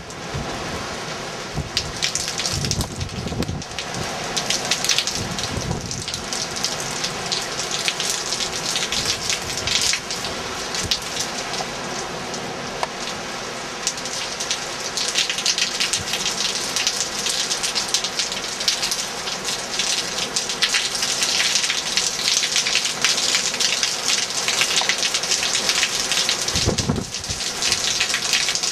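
Hurricane rain pouring hard and splashing on the ground, a dense steady hiss driven by strong wind. Low rumbles swell a few seconds in and again near the end.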